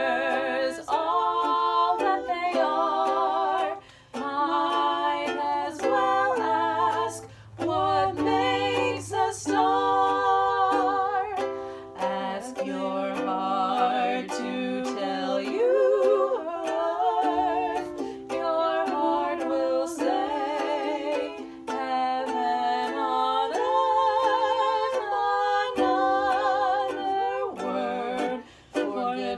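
Two women singing together to a ukulele accompaniment, the held notes sung with vibrato.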